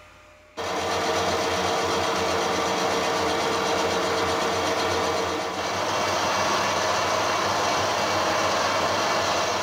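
Harrison 140 lathe running at 480 rpm under power feed while a carbide tool takes a rough cut along a bar turned between centres. A steady cutting and machine noise with a faint tone, starting abruptly about half a second in and fading near the end.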